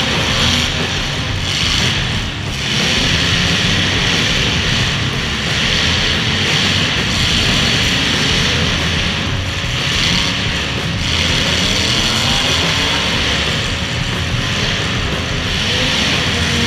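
Several full-size demolition derby cars' engines running hard and revving, with one engine's pitch rising about 11 seconds in.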